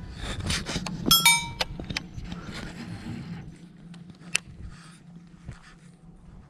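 Scattered clicks and knocks, with a short ringing metallic clink about a second in.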